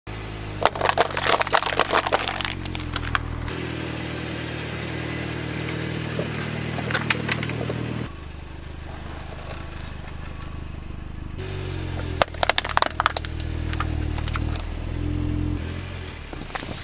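A car engine running steadily, with three bursts of sharp cracking and crunching, typical of plastic toys being crushed under the car's tyres.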